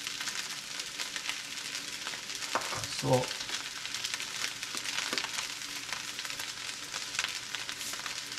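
Chicken fried rice frying in a large stainless steel pan: a steady sizzle flecked with many small pops and crackles. A brief voice-like sound comes about three seconds in.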